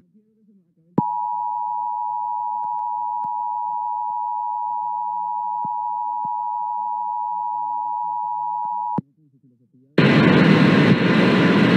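Emergency Alert System attention signal: the two-tone EAS alert (853 Hz and 960 Hz sounded together), a steady tone held for about eight seconds that starts about a second in and cuts off sharply, marking the start of the National Periodic Test alert. About a second after it stops, a loud noisy sound begins.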